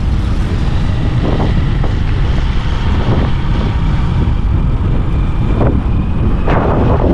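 Wind buffeting the microphone while riding: a steady low rumble with a few short, louder gusts.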